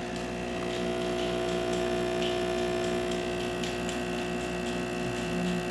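Breville Barista Express espresso machine's vibratory pump humming steadily under load while it pushes water through a double shot of espresso.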